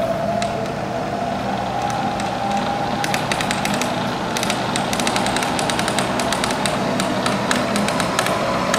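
Bridgeport Series 1 vertical milling machine's variable-speed spindle head running, its whine rising in pitch over the first few seconds as the speed is turned up. From about three seconds in, rapid irregular clicking runs over the machine noise.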